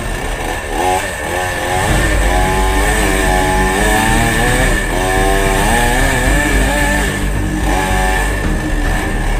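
Two-stroke chainsaw running and cutting into a fallen tree trunk. Its engine note rises and falls several times as the throttle is opened and eased.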